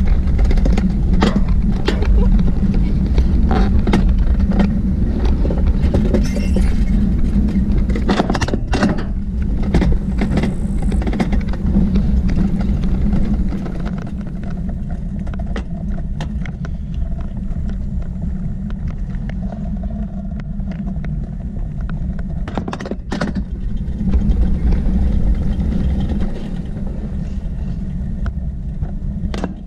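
Summer toboggan sled running down its stainless-steel trough track: a steady low rumble with scattered clicks and knocks, easing off a little about halfway through.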